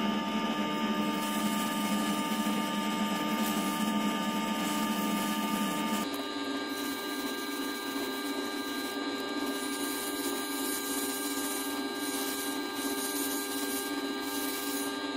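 An 1893 Strube & Fils lathe running steadily, with a spinning brass workpiece being sanded with abrasive paper held against it. The steady hum of the machine changes pitch abruptly about six seconds in.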